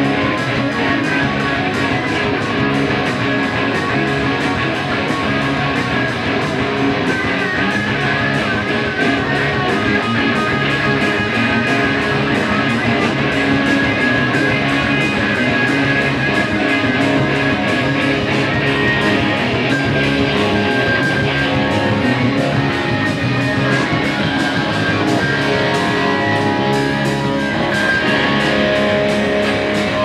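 Live rock band playing an instrumental passage: electric guitars, bass guitar and drums, with no singing.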